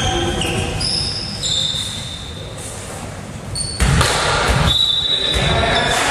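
Volleyball hall between rallies: sneakers squeaking on the wooden court floor and a volleyball bouncing, with the hall getting suddenly louder about four seconds in and a high squeak held for about a second just after.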